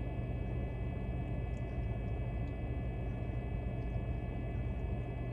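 Steady machine hum with a faint, constant high whine over it.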